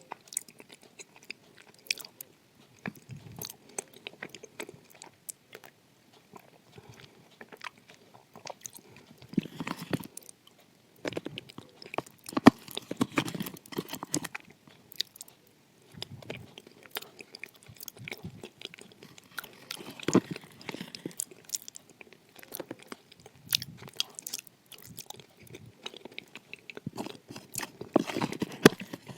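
Close-miked chewing and biting of edible clay, with crisp crunches and clicks coming in uneven bursts.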